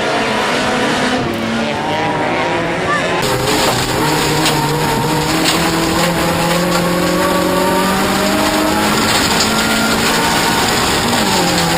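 Toyota Corolla offroad race car's engine running hard under load, its pitch stepping up and down with gear changes and dropping near the end, with scattered sharp ticks over it.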